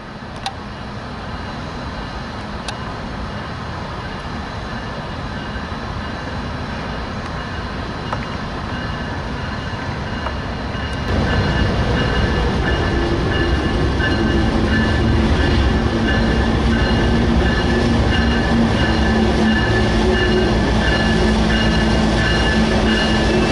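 Approaching CSX freight train led by a GE ES44AH diesel-electric locomotive: a low rumble that grows steadily louder and steps up abruptly about halfway through. High steady squealing tones ride over it.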